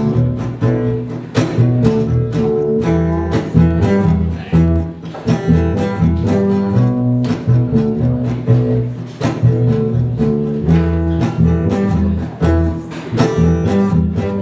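Instrumental break in a live acoustic song: picked acoustic guitar over a low, sustained string bass line, with no singing.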